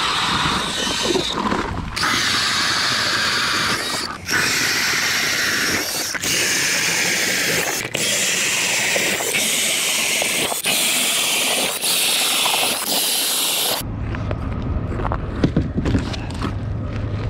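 Ice auger driven by a cordless drill boring holes through lake ice: a steady, loud whir and grinding of ice chips, broken several times by brief gaps. About three-quarters of the way through the drilling stops abruptly, and low rumbling and knocking handling noise follows.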